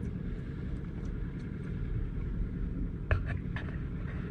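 Boat engine running at idle, a steady low rumble, with a few sharp clicks or knocks about three seconds in.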